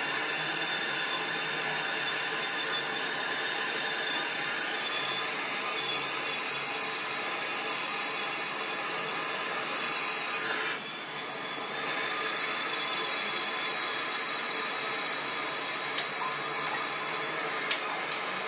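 Handheld gas torch burning with a steady hiss while brazing copper refrigerant tubing. The hiss dips briefly about eleven seconds in, and a couple of faint ticks come near the end.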